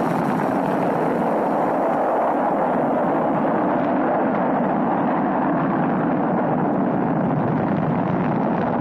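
Rocket-style exhaust of a lift cabin blasting off: a loud, steady rushing noise, its upper hiss dying away after about three and a half seconds to leave a duller rush.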